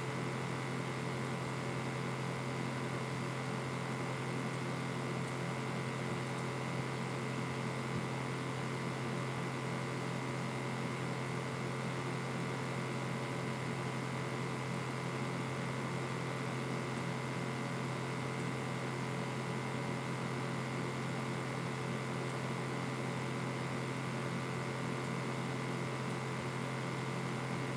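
Steady electrical hum with a few constant higher tones and hiss, unchanging throughout, with no music or speech playing.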